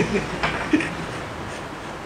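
A man's voice trailing off, with a couple of short faint vocal sounds in the first second, then steady background hiss of room tone.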